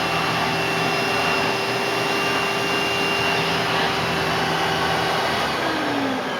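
A 1997 Hoover Dimension Supreme direct-air upright vacuum running steadily with a constant whine. Near the end its motor starts to wind down, the pitch falling.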